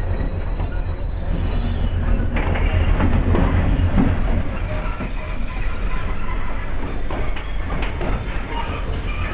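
Loaded stone-train wagons rolling slowly over the track, wheels clicking and knocking at the rail joints, with a thin high wheel squeal now and then.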